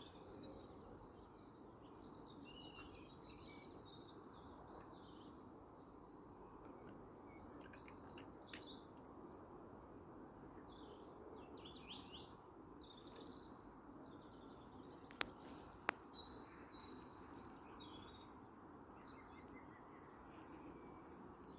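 Faint spring dawn chorus: several songbirds singing and chirping over one another in short, overlapping phrases, over a steady low background rumble. A few sharp clicks come near the middle.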